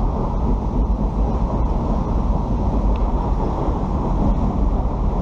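Steady low rumble of a fast-flowing river swirling around a wading angler, mixed with wind buffeting the camera's microphone.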